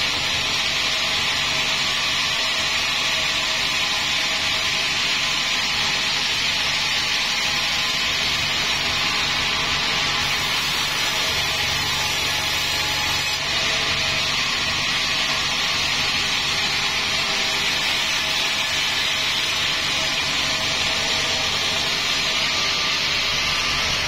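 Band sawmill running and cutting lengths of wadang timber into long strips: a steady, unbroken saw noise over a low machine hum.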